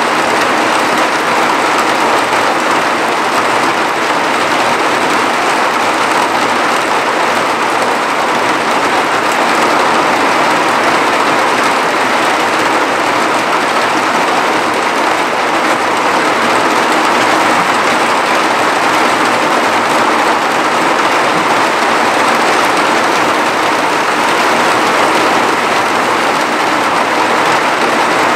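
Heavy cloudburst rain pouring down steadily, an even, unbroken hiss.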